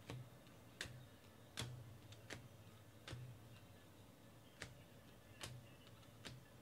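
Baseball cards being flicked off a stack one at a time, each giving a crisp snap, roughly one a second, faint.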